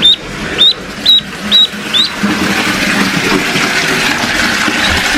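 Ducklings peeping, five short high chirps about twice a second, then water from a bathtub tap starts running steadily about two seconds in.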